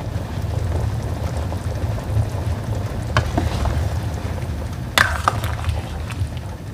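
Large stainless steel pot of chicken soup boiling on a gas stove, a steady low bubbling rumble. A metal ladle knocks against the pot a couple of times as the soup is stirred.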